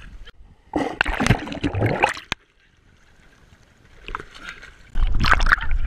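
Water splashing and sloshing close to the microphone as a dog swims: a loud spell of splashing about a second in, a muffled lull, then loud splashing again near the end.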